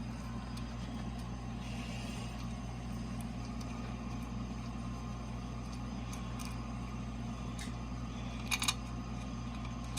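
Steady low mechanical hum of shop machinery, with a few sharp metallic clicks about eight and a half seconds in.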